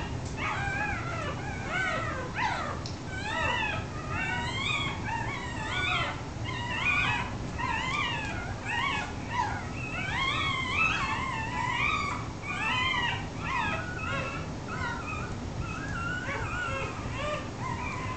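A litter of newborn beagle puppies, about half an hour old, squeaking and crying while rooting and nursing at their mother: many overlapping short, high cries that rise and fall in pitch, one after another without a break, over a steady low hum.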